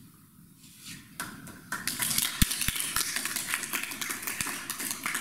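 Small audience clapping, starting about a second in and filling out into steady applause from about two seconds.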